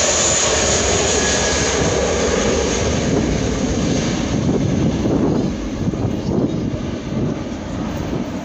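Airbus A320's twin jet engines at takeoff thrust during the takeoff roll: a loud, steady rushing noise with a high hiss, which fades somewhat after about five seconds as the airliner moves away and lifts off.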